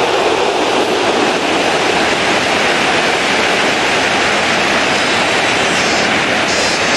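Stadium crowd noise at a football match: a loud, steady din from the stands, with a thin high whistle-like sound near the end.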